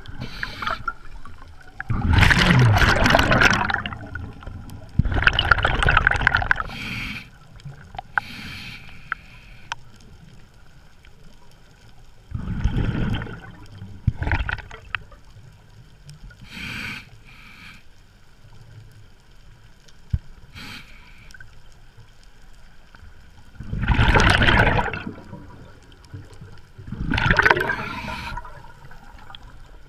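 Scuba diver breathing through a regulator underwater: about five loud bubbling rushes of exhaled air, a second or two each, with shorter, fainter hisses of the regulator's demand valve on the in-breaths between them.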